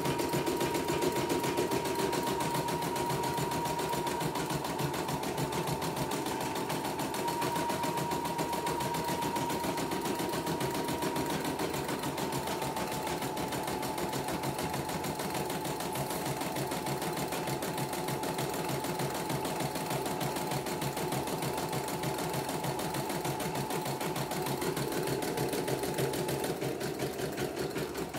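CNY computerized embroidery machine stitching a design: the needle bar runs at a fast, even rate over a steady motor whine as the hoop steps beneath it, during a test run after repair.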